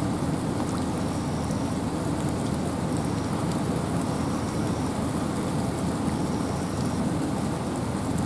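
Steady wind and rain in a forest: an even, unbroken low rush with scattered raindrop ticks.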